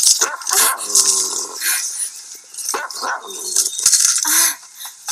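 German shepherd barking repeatedly, several sharp barks in quick succession.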